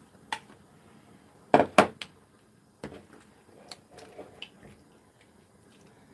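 Kitchenware knocking against a cooking pot as chopped vegetables and tofu are tipped in from a plastic container and stirred with a wooden spoon: scattered light clicks, with two loud knocks close together about a second and a half in.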